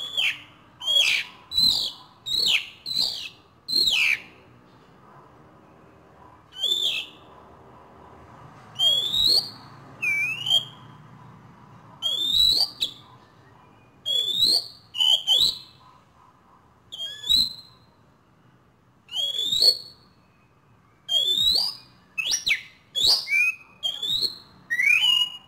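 Asian pied starling giving short, loud, rising whistled calls over and over, in quick runs of two to six with short pauses between them. The bird is practising its calls.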